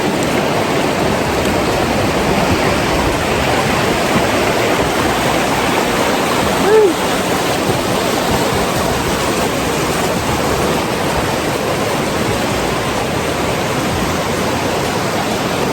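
Steady rush of river water below a waterfall. One short pitched sound rises and falls about seven seconds in.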